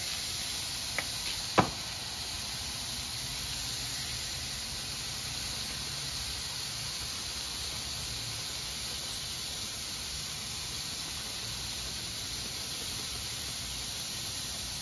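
Opo squash frying in a wok over an outdoor burner, a steady sizzle and hiss with a low rumble underneath. Two light clicks sound in the first two seconds, the second sharper.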